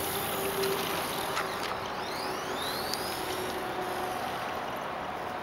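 Brushless electric motor of an on-road RC touring car (9T EZRun) whining as the car accelerates, the whine rising in pitch about two to three seconds in, over a steady hiss.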